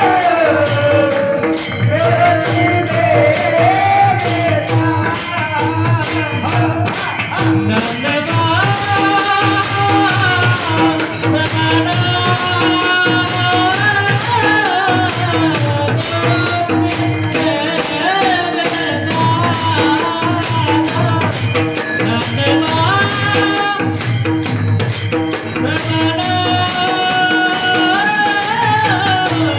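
A male devotional singer carrying a slow Marathi bhajan melody that rises and falls, accompanied by pakhawaj drum and small jingling hand cymbals over a steady drone.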